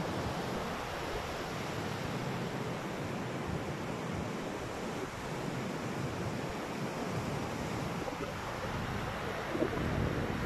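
Steady rushing wind blowing across the phone's microphone, with an uneven low rumble.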